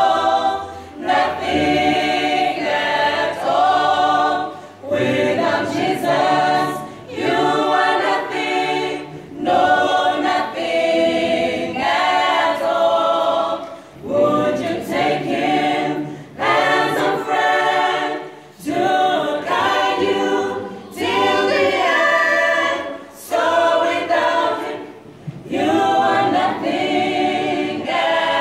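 Mixed youth choir of male and female voices singing a Christian gospel song a cappella in harmony, in short phrases with brief pauses between them.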